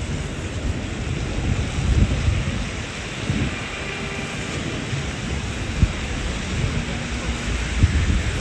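Rain on a city street: a steady hiss of falling rain over a low, uneven rumble with scattered thumps.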